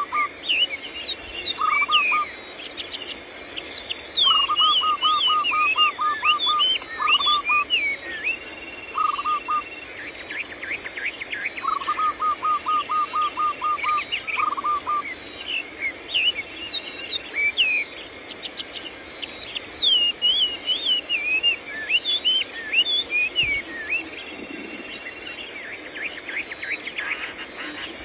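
Birds chirping and calling, with several bouts of rapid repeated short notes in the first half, over a steady high insect buzz.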